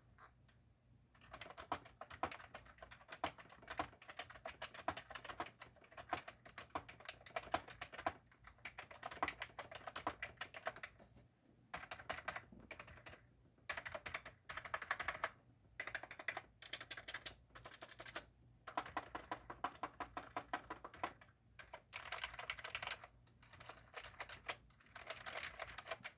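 Fast typing on a membrane computer keyboard: dense runs of rapid key clicks, broken by short pauses every few seconds.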